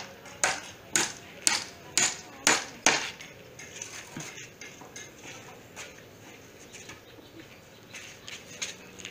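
Hammer blows, seven sharp strikes about two a second, then stopping after about three seconds; a few faint taps follow.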